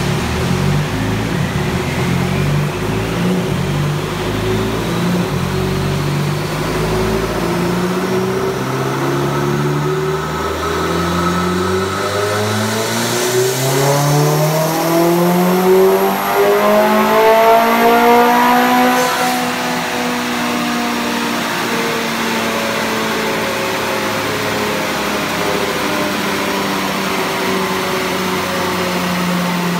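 Mitsubishi Lancer Evolution X's turbocharged 2.0-litre four-cylinder, fitted with a BorgWarner EFR 7163 turbo, run on a chassis dyno. The pitch shifts in short steps for the first several seconds. Then the engine makes one long climb in revs for about ten seconds, with a faint high whine over it. The climb cuts off sharply, and the engine settles to a steady lower note.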